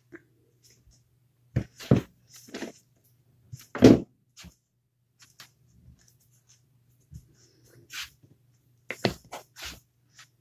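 Scattered short knocks and rustles of fingers handling a polymer clay dragon on a round lid while pressing scales into place, over a faint steady low hum. The loudest knock comes about four seconds in, and a cluster of smaller ones comes near the end.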